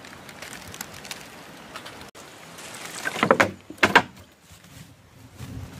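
A few faint clicks of a knife cutting okra in the hand, then two loud crackling rustles about three and four seconds in.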